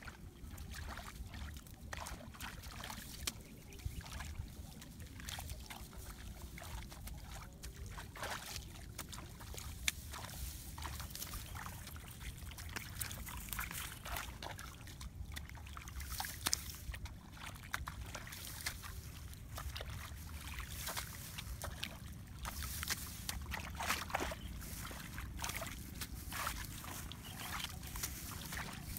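Hands splashing and sloshing in shallow muddy paddy water, with many small irregular splashes and trickles, over a low steady rumble.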